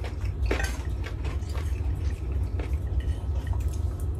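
A fork clinking and scraping on a plate of rice as someone eats, several light clicks spread through, over a steady low hum.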